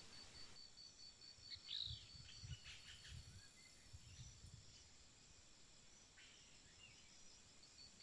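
Near silence: faint outdoor ambience. A faint, fast-pulsing high tone stops about half a second in, and a few faint chirps and low rumbles follow.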